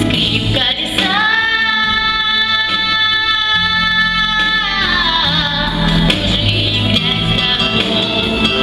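A young girl's solo voice singing a pop song over a backing track, holding one long note for several seconds and then sliding it down, after which the backing track carries on alone.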